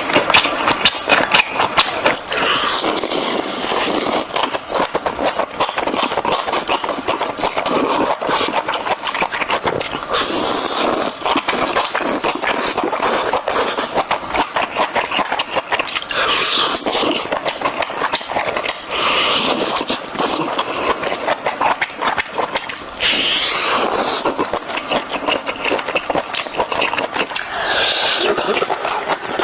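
Close-miked eating of enoki mushrooms: fast, continuous wet chewing and slurping with dense crackling mouth clicks, in a few stretches drawn out into longer slurps.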